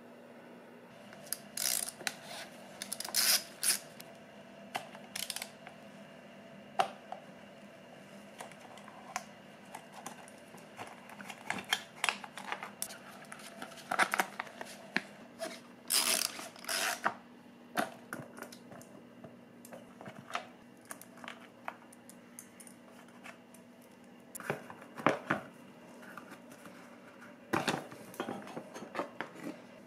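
Irregular clicks, metal clinks and rustles of hands handling bolts, tools and a skid plate on a motorcycle's underside. A low steady hum runs underneath.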